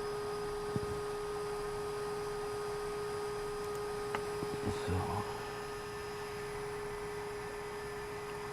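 Hot air rework station running as it heats up, a steady single-pitched hum, with a few faint taps and clicks about four to five seconds in.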